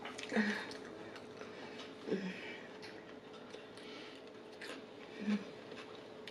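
Close-miked eating: chewing and small clicky mouth noises, with three brief low sounds from the eater's mouth or throat.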